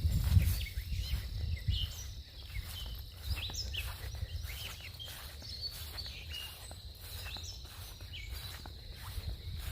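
Outdoor ambience of birds chirping: many short, quick downward-sweeping chirps over a steady high insect drone, with a low rumble of wind or handling in the first second.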